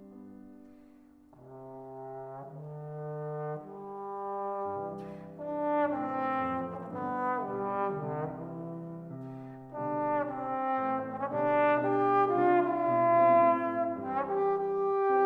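Trombone playing a slow melodic phrase over piano accompaniment. It starts softly and swells louder toward the end.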